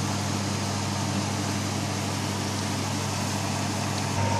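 Steady low mechanical hum with an even hiss over it. About four seconds in it steps up a little louder and a thin steady high tone joins in.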